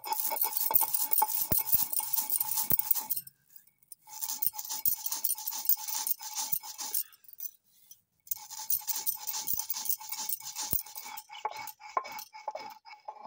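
Stone roller rolled back and forth over a ridged sil grinding stone, crushing roasted whole spices into coarse powder. The grinding is a gritty crackling scrape with a thin steady ring under it, and it comes in three bouts with short pauses between them.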